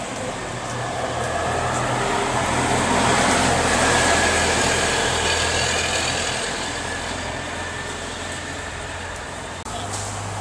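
CNG-powered New Flyer low-floor city bus pulling away from a stop and driving off, its engine rising to a peak a few seconds in and then fading as it leaves. Near the end the sound cuts abruptly to another bus running close by.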